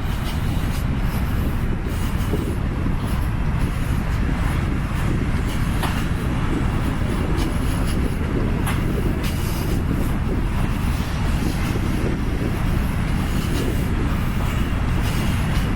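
Atlantic Ocean surf breaking on the beach: a continuous, deep roar of waves with no distinct pauses.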